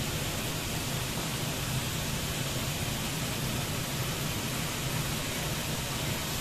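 Milk and butter-flour roux sizzling steadily in a hot frying pan, an even hiss with a low steady hum underneath.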